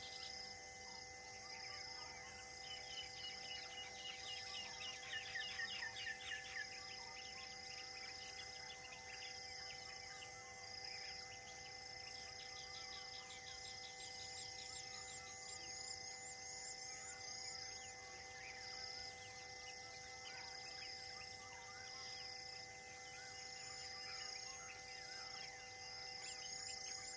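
Forest ambience: birds calling in bursts of fast descending trills, over a short high chirp repeated about once a second and a steady drone of even tones.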